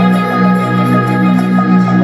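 Music with sustained chords played through a JBL Stage 2 624 6.5-inch two-way coaxial car speaker during a sound test. The music is steady and loud, with little of the deepest bass.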